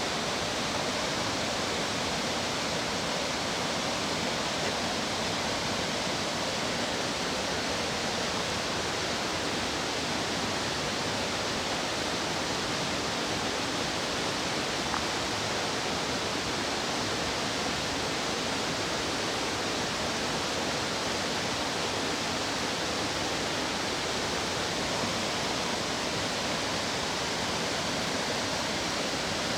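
Steady rush of fast-flowing stream water, an even hiss with no change.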